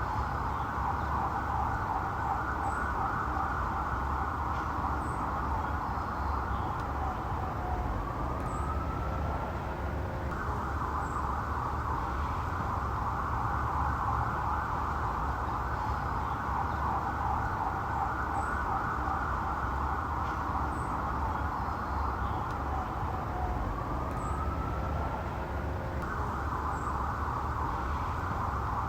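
Police car siren sounding continuously in a fast warbling tone, broken twice by a slow rising sweep, over a steady low rumble.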